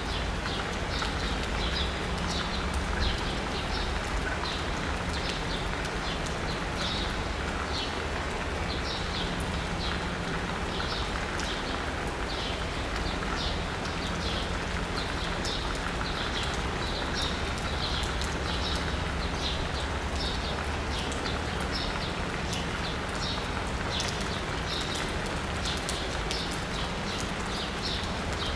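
Steady rain pattering on asphalt and rooftops, with a bird chirping over it in rapid short high notes again and again. A low steady hum lies beneath.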